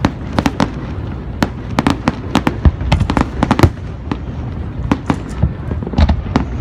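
A fireworks display: many sharp cracks and bangs of aerial shells bursting, several a second in irregular clusters, over a continuous low rumble.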